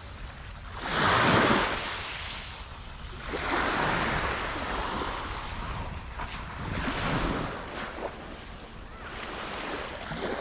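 Small waves breaking and washing up a sandy beach, several swells rising and falling in turn, the loudest about a second in, with wind on the microphone.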